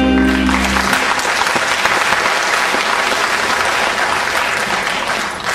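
Audience applauding at the end of a live song; the band's final held chord rings under the clapping and stops about a second in.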